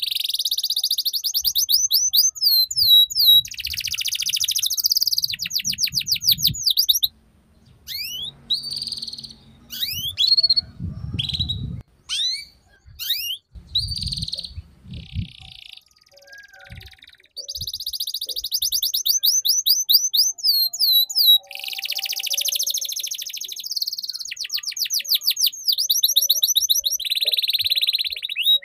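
Canary singing: long rolling runs of fast repeated high notes in the 'ngeriwik' trill style, with a middle stretch of shorter separate chirps and pauses before the rapid trills resume. A few low thuds come in the middle.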